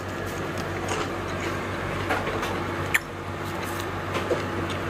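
Restaurant room tone: a steady low hum with faint clatter, and one sharp tap about three seconds in.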